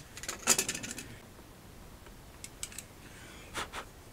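Small hand tools being picked up and set down on a workbench: a short clattering rattle about half a second in, then a few light clicks.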